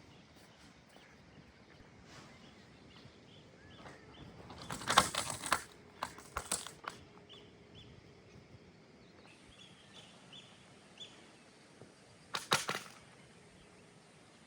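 Three short bursts of rustling or swishing, about five, six and a half and twelve and a half seconds in, with faint small chirps in the quiet between them.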